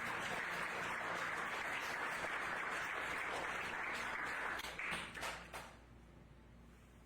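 Congregation applauding, a dense patter of clapping that dies away about five seconds in with a few last scattered claps.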